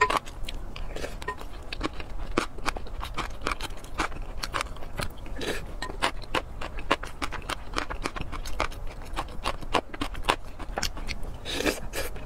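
Close-miked wet chewing and mouth smacking of spoonfuls of a saucy mixed dish, many irregular sharp clicks, with a wooden spoon scraping and knocking in a glass bowl as more is scooped up.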